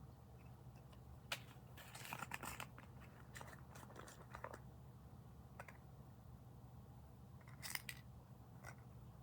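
Faint scattered clicks and light rattles of small hard objects being handled, a few at a time with a short cluster near the middle, over a steady low hum.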